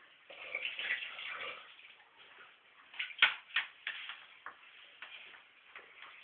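A broomstick knocking against a hard bathroom floor: about five sharp knocks within a second and a half, the loudest about three seconds in, after a short noisy rush near the start.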